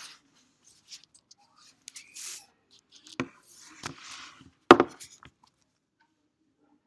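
A few sharp knocks and clicks, the loudest a little over four and a half seconds in, with short rustling hisses between them.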